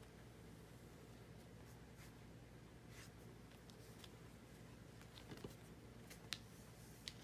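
Near silence: a steady low room hum with a few faint, light taps and ticks, about five seconds in and again near the end, as a cat plays with a fluffy duck-down toy on a laminate floor.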